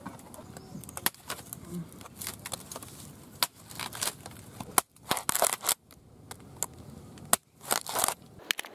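Machete cutting and shaving a green bamboo pole: sharp clicks and a few crackling, scraping strokes, the longest in the second half.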